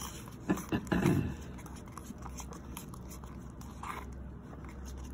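Palette knife stirring and scraping thick, fluffy acrylic paint against the sides of a plastic cup, with a few sharper scrapes or knocks about a second in, over a steady low hum.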